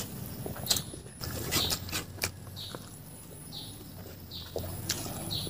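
Chewing and wet lip smacks, about one a second, mixed with sharp clicks and the soft patter of fingers working fried rice on a banana leaf.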